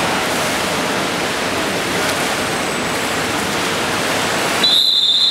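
Steady rushing noise of water splashing in a pool. About four and a half seconds in, a shrill whistle blast, likely the referee's, starts suddenly and is held.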